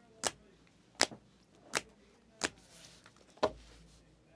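Trading cards being handled one by one on a table, making about five sharp clicks a little under a second apart.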